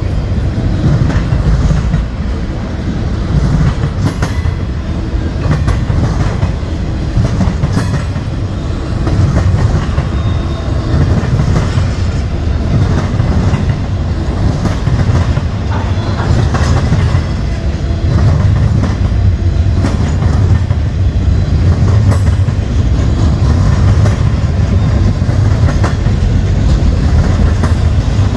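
CSX freight train of container-laden intermodal well cars rolling past, a steady loud rumble of steel wheels on rail with repeated clacks as the wheels cross rail joints.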